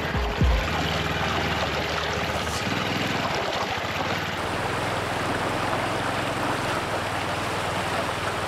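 Shallow river water rushing, with a small motorcycle engine running low underneath until about seven seconds in. A heavy low thump comes about half a second in.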